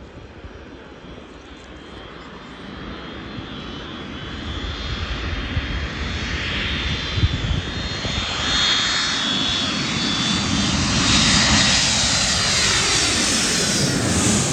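Jet airliner passing low overhead: its engine noise builds steadily over several seconds, with a high whine and a sweeping, shifting tone, and is loudest near the end.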